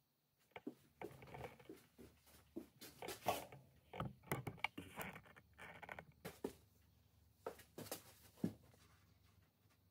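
Scattered light taps, knocks and rustles of someone moving about and handling things, played at double speed; the sharpest knocks come a little after three seconds and near eight and a half seconds.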